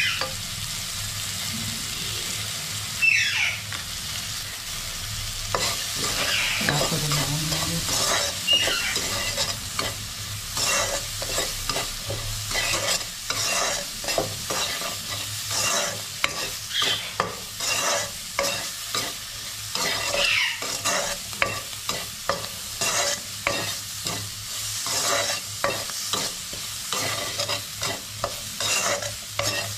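Steel spoon stirring and scraping chopped onions frying in oil in a stainless steel kadai, over a steady sizzle; the onions are sautéing with turmeric and salt for a dal tadka. The scraping strokes come quicker and more regularly after about ten seconds, with a few brief squeaks of metal on metal.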